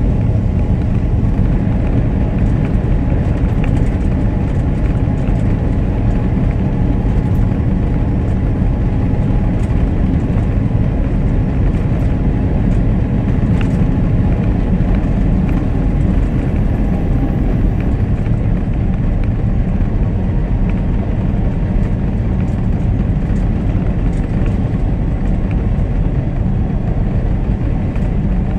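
Steady road noise inside a moving truck's cab at highway speed: engine drone with tyre and road rumble.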